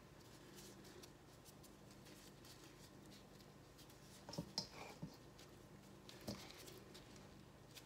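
Near silence over a low steady hum. A few faint clicks and soft taps, mostly about halfway through, come from gloved hands handling raw chicken wings in a metal bowl.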